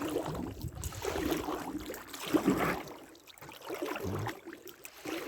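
Water splashing and knocking around a small boat on the water, in irregular bursts.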